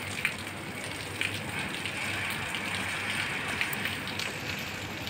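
Heavy rain falling steadily, with a few sharper drop ticks now and then.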